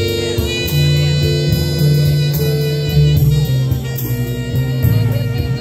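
Music with guitar: held notes over a bass line.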